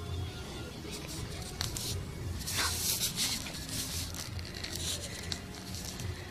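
Rustling, scraping handling noise from a hand brushing over the recording phone, loudest about halfway through, over a steady low rumble.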